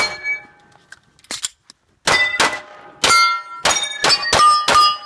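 A string of rapid handgun shots, about ten in five seconds, in quick pairs and runs, each followed by the ringing clang of a steel plate target being hit.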